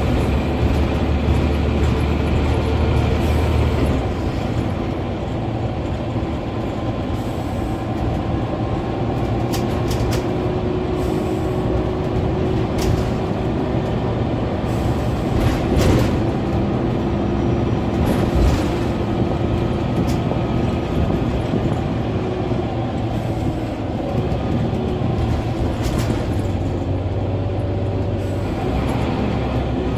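Scania N94UB OmniCity single-deck bus heard from inside the passenger saloon, its rear-mounted diesel engine running while the bus drives. The low engine note is strong at first, drops about four seconds in and rises again near the end, with a couple of knocks about halfway through.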